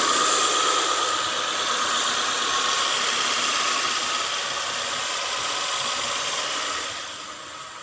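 A 1997 Honda CR-V's four-cylinder engine idling steadily, running smooth now that its misfiring spark plugs have been replaced. It grows quieter near the end.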